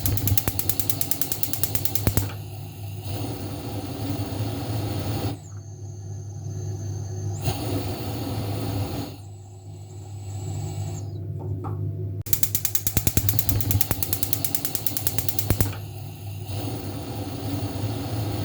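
Gas stove's electric igniter clicking rapidly, then the burner catching and the gas flame burning with a steady hiss; the rapid clicking comes again about 12 seconds in and gives way once more to the flame. A steady low hum runs underneath.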